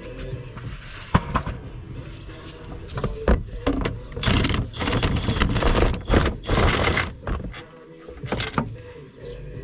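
Ratchet wrench on a long extension being worked in a car's engine bay: a sharp click about a second in, then short bursts of rapid ratcheting around four and again around six to seven seconds in.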